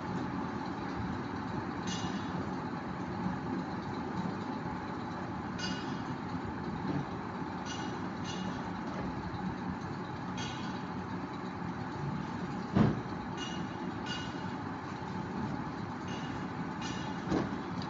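Steady low rumble and hiss of background noise, with one sharp knock about thirteen seconds in and a softer one near the end.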